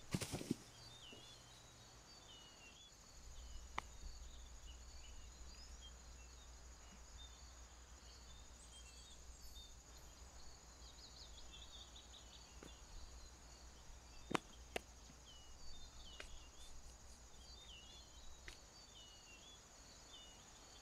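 Faint birdsong: many short chirps repeating throughout, over a steady high tone. A low rumble comes in about three seconds in, and there are a few sharp clicks, the loudest about fourteen seconds in.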